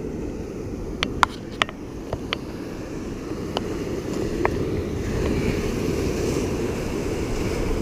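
Steady low rumble of ocean surf and wind, with a handful of sharp clicks in the first few seconds. The hiss of breaking surf swells up a little past halfway.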